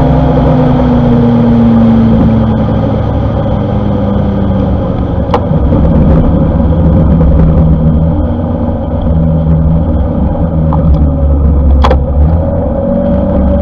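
Honda ADV150 scooter's single-cylinder engine running steadily while riding, with wind and road noise; its pitch eases down slightly about a second in. Two sharp clicks stand out, about five seconds in and near the end.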